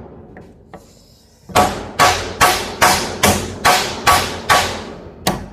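A hammer striking a flathead screwdriver wedged into a welded seam, about ten sharp blows in a steady rhythm of roughly two and a half a second, starting about a second and a half in. The blows are driving the screwdriver in to crack the weld open.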